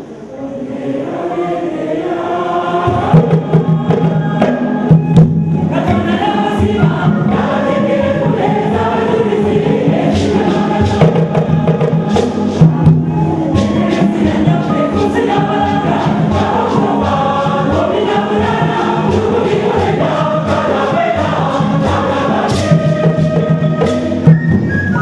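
Church choir singing a traditional Ganda gganda song in full harmony. Drums and gourd shakers keep a steady beat under the voices, entering about three seconds in.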